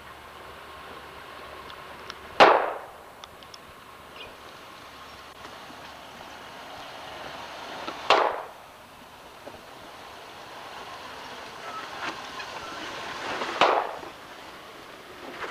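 Jeep Wrangler YJ crawling over a rocky trail, its engine running low under three loud, sudden knocks a few seconds apart as it climbs over the rocks.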